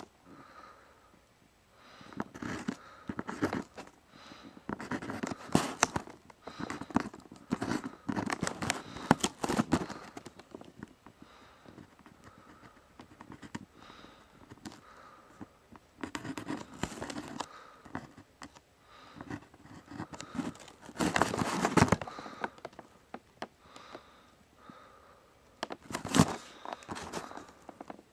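Short mechanical pencil's lead scratching across paper as someone writes, in uneven bursts of strokes with short pauses between words.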